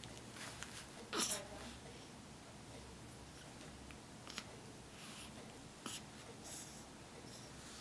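A hiccup: one short, sharp 'hic' with a brief voiced tail about a second in, followed later by a couple of fainter clicks.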